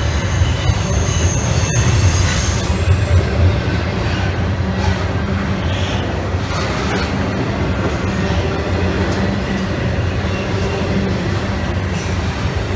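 Railroad cars rolling past on the track with a steady heavy rumble and a thin, high-pitched wheel squeal, strongest in the first couple of seconds.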